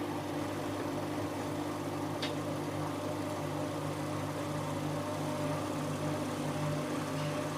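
Siemens Siwamat 7163 washing machine running with a steady mechanical hum, with a single short click about two seconds in.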